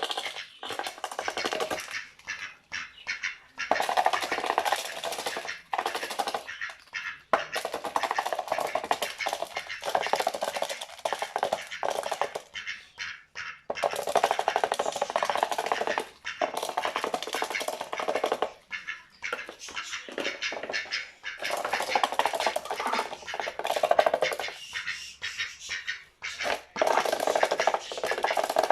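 A duck eating dry cat biscuits, its bill making rapid runs of clicking several seconds long, broken by short pauses.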